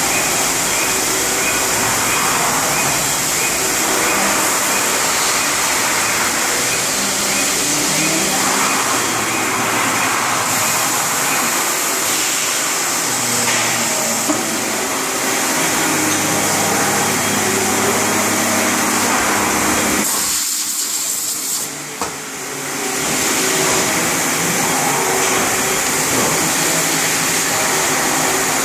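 CNC machine running: a steady, vacuum-like spindle noise, with stepper-motor tones that jump from pitch to pitch as the axes move. The noise drops off briefly about three quarters of the way through, then comes back.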